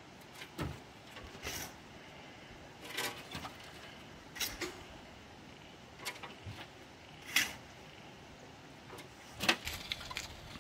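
A square-mouthed shovel scooping loose soil from a trailer bed, with a short scrape or scuff every second or two as the blade digs in and the load is tipped off.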